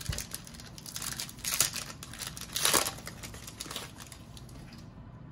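Wrapper of a Panini Mosaic Fast Break basketball card pack being torn open and crinkled by hand, with the loudest crackles about one and a half and nearly three seconds in, quieting near the end.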